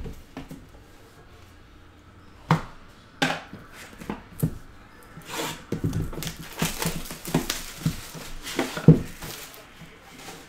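Cellophane shrink-wrap crinkling and ripping as it is torn off a cardboard trading-card hobby box. A few sharp knocks of the box being handled come first, then a dense run of crackling and tearing from about the middle, loudest near the end.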